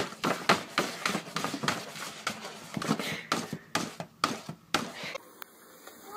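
A paper shopping bag rustling and crackling in quick, irregular clicks as a cat paws and scrabbles in it. The crackling stops about five seconds in.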